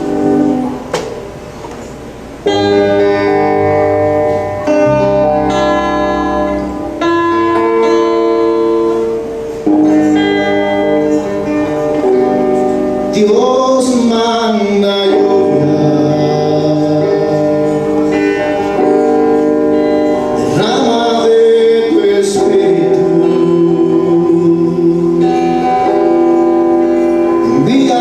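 A band playing a Christian worship song: sustained chords over a bass line, with a voice coming in singing about halfway through.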